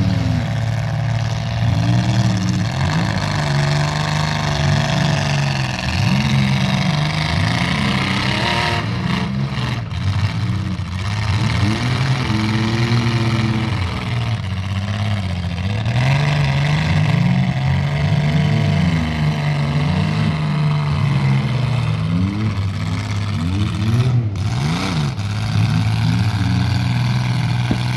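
Engines of several demolition-derby compact cars revving, each pitch rising and falling over and over as the cars accelerate and back off, overlapping one another.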